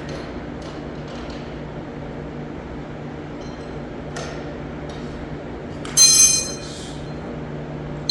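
Metal tools and parts clinking during an alternator pulley swap, with one loud ringing metallic clank about six seconds in, over a steady low hum.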